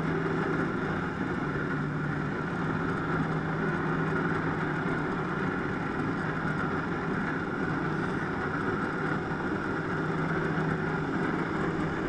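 Jet ski engine running steadily at sustained throttle, driving water up the hose to a flyboard; a constant low hum over an even rushing noise.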